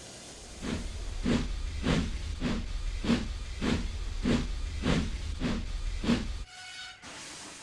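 Steam locomotive chuffing steadily at a slow pace, about two exhaust puffs a second over a low rumble, cutting off suddenly near the end.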